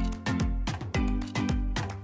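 Background music with a steady beat and deep, falling bass notes.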